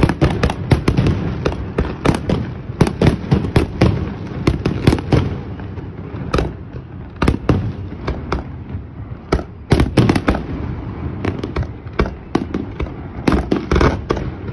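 Fireworks launching from close by and bursting overhead: many sharp bangs in quick, uneven succession over a rumbling background, thinning out for a few seconds in the middle and picking up again near the end.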